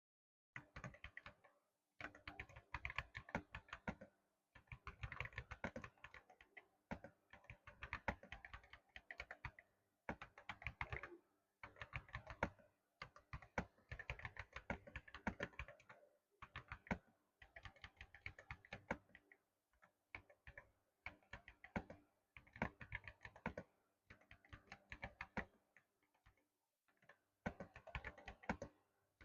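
Typing on a keyboard fitted with MOA-profile keycaps: bursts of rapid keystroke clicks lasting a second or two, separated by short pauses.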